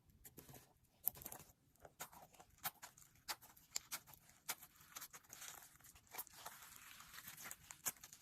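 Slime being squished and worked by hand, giving faint, irregular crackling clicks and pops, a few each second.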